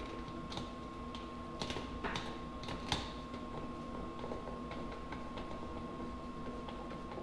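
Scattered light clicks and knocks of hand tools and bolt hardware as a mud flap is fastened to a truck's wheel well, at irregular intervals over a steady low hum.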